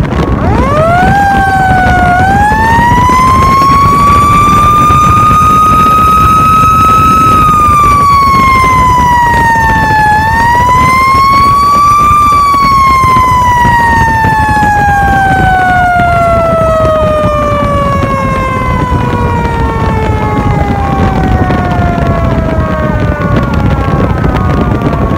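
Fire truck's siren winding up quickly to a high wail and holding it, dipping and climbing once more about halfway, then falling slowly in pitch through the second half. Steady road and wind noise from the moving truck runs underneath.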